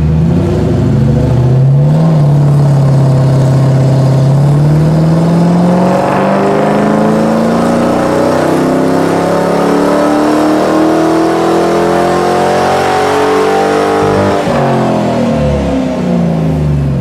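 Ford 4.6-litre SOHC V8 of an SN95 Mustang GT, on its stock non-PI intake, pulling at full throttle on a chassis dyno for a power run. The engine note climbs steadily in pitch for about fourteen seconds, then falls away as the throttle is released near the end.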